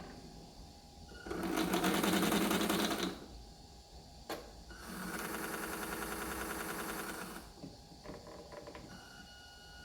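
A small motor whirring in two runs of two to three seconds each, with a sharp click between them.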